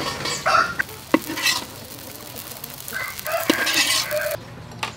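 Metal spatula stirring and scraping in a wok with sizzling frying, and a couple of sharp taps of the spatula against the pan. The sizzle cuts off shortly before the end.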